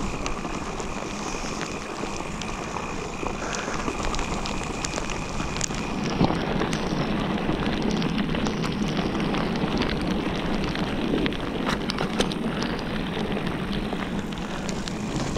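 Mountain bike rolling along a wet dirt trail in the rain: steady tyre noise on dirt with scattered clicks and rattles, getting a little louder about six seconds in.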